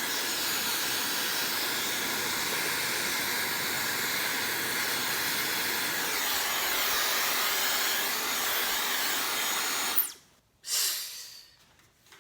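Dyson Supersonic hair dryer blowing steadily with a hissing rush of air for about ten seconds, then switched off, its motor whine falling away; a second short blast follows just after.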